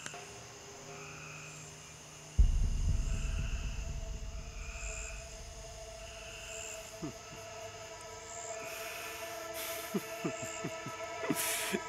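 Ominous film-score drone of held tones, with a deep low boom about two and a half seconds in that slowly fades, over night insects chirping. A few soft low thumps come near the end.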